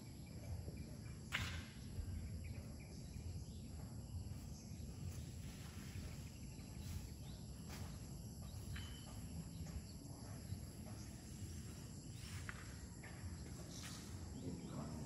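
Outdoor ambience: a steady high-pitched drone of insects over a low steady rumble, with a few faint clicks.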